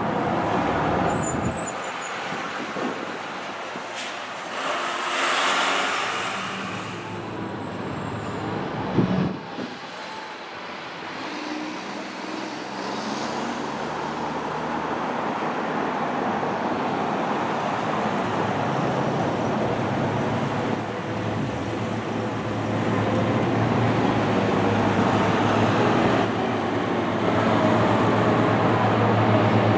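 Car engine and tyre noise from road traffic, growing louder over the second half, with one sharp knock about nine seconds in.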